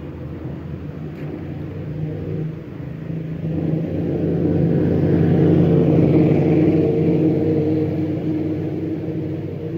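A motor vehicle's engine running with a steady low hum, growing louder from about three seconds in to a peak near the middle, then fading somewhat.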